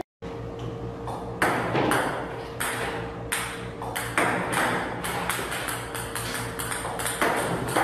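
Table tennis balls fired by a ping-pong robot, pinging sharply as they bounce on the table in an irregular run of hits, a few of them louder, over a steady low hum.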